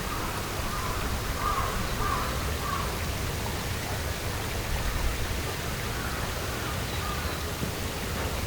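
Crows cawing several times in a row in the first few seconds, with a few fainter calls later, over a steady outdoor hiss and low rumble.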